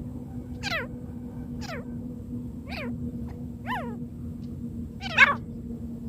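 Francolin (teetar) calling: five short, sharply falling notes about a second apart, the one about five seconds in the loudest, over a steady low hum.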